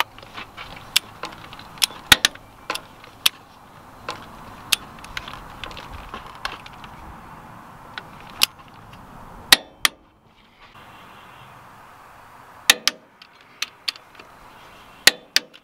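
Torque wrench and socket being worked on the head bolts of a Kubota D1503-E diesel's cylinder head: about twenty irregular, sharp metallic clicks and clinks of the ratchet and steel tools.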